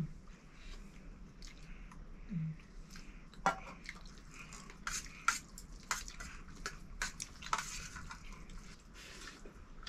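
Metal dishes and utensils clinking and scraping: irregular short taps and clinks, with several louder ones in the second half.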